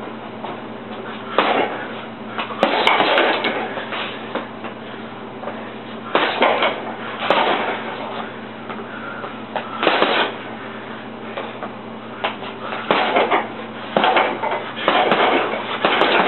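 Gloved punches thudding into a hanging heavy bag in short combinations, a few quick hits at a time with pauses of one to three seconds between flurries.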